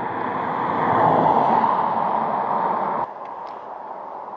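A vehicle going past: a rush of road noise that swells and fades, then cuts off suddenly about three seconds in.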